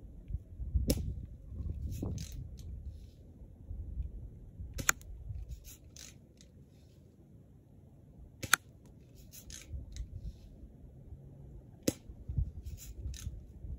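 Daisy Red Ryder spring-powered BB gun being fired repeatedly: four sharp shots about three and a half seconds apart, with lighter clicks between the shots as the cocking lever is worked.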